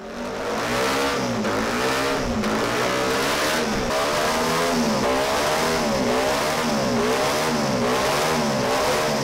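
Honda RC142 replica's 124.6 cc DOHC, bevel-gear-driven racing engine being revved on its stand, the throttle blipped over and over so the pitch rises and falls about once a second.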